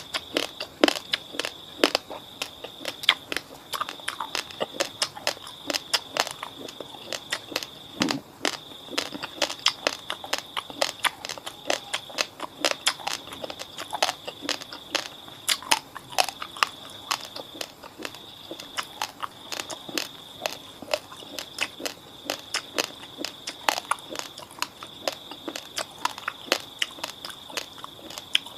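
Raw basmati rice grains being bitten and chewed close to the microphone: rapid, sharp crunches, several a second. A steady faint high-pitched whine sits underneath.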